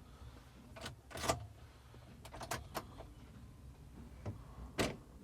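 Irregular sharp clicks and short knocks inside a Mahindra Thar's cabin, about seven in five seconds, with the engine not yet running.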